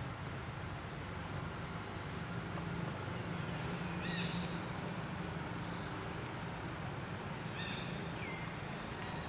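Outdoor ambience: a steady low hum under a light hiss, with birds giving short high chirps every second or so and a few lower, falling calls about four and eight seconds in.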